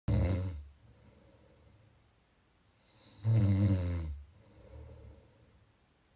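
A person snoring: two loud, pitched snores about three seconds apart, one right at the start and a longer one about three seconds in. Each trails off into a quieter breath.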